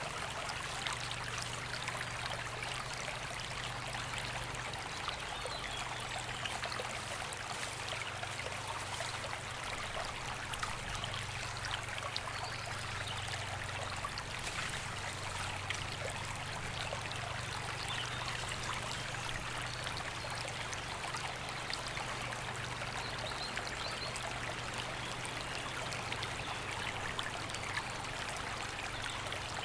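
Woodland river flowing over stones: a steady rush of water with constant small splashes and trickles.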